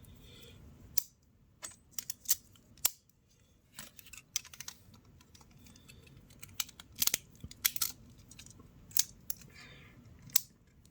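Beyblade Burst top's layer, metal disc and driver being fitted together by hand: a scattered run of sharp clicks and snaps as the parts are twisted and locked into place.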